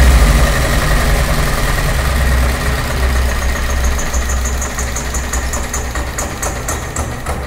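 Four-stroke diesel engine running down after being shut off at its fuel lever. Its running sound fades steadily, and the beats of its strokes slow as it coasts toward a stop.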